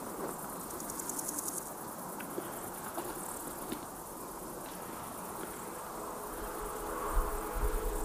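Insects trilling in short spells of fast, high-pitched pulses over a steady hiss. A low rumble rises near the end.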